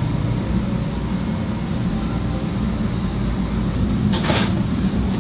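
Steady low rumble, with a short splash about four seconds in as a bowl of water is poured onto a heap of flour for kalguksu noodle dough.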